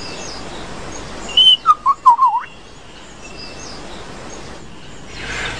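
Superb lyrebird calling: one short high whistle, then a quick run of loud wavering notes, over a steady background hiss.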